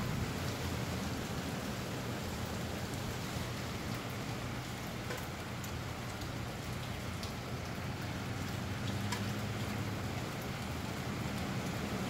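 Steady rain falling, with scattered drops tapping and a low steady rumble underneath.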